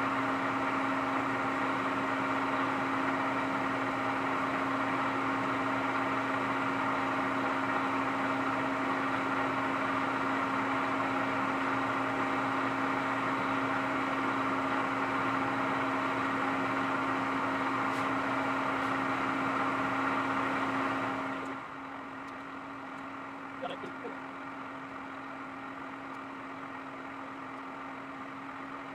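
Geared-head drill press running steadily with a carbide cutter grinding into a broken hardened dowel pin in a camshaft's end. About 21 seconds in, the cutting noise stops and the machine's lower steady hum carries on.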